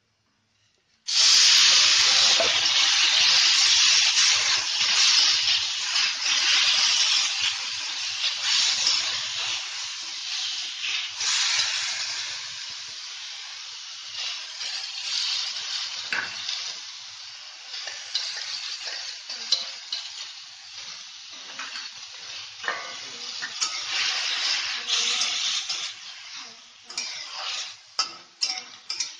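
Chopped tomatoes sizzling loudly in hot oil in a pan, the sizzle starting suddenly about a second in as they go into the oil and slowly dying down. Near the end a flat metal spatula knocks and scrapes against the pan as the tomatoes are stirred.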